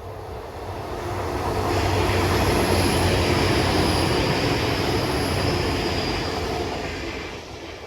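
Passenger train passing along the railway line: the rumble of its wheels on the rails builds over about two seconds, holds, then fades away near the end, with a faint, steady high whine over it.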